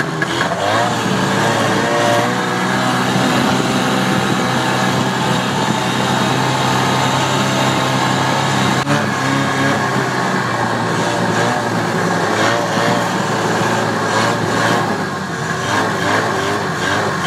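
Vintage two-stroke snowmobile engines running under way through deep snow, the engine note wavering up and down now and then with the throttle. One sharp click about halfway through.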